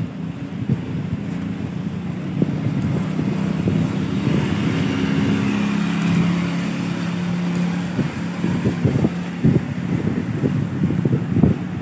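Motorcycle engine running steadily while riding, with wind buffeting the microphone in gusts that grow more frequent in the second half.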